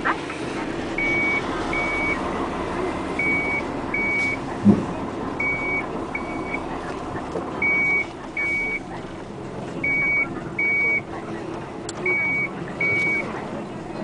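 Construction machine's reversing alarm beeping in pairs, about one pair every two seconds, over an engine running steadily. A single thump about four and a half seconds in.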